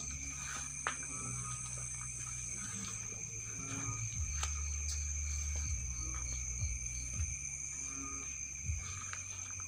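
Night insects, crickets, trilling steadily at two high pitches, with a faint pulsing chirp joining in partway through. Underneath are a low rumble and a few sharp clicks.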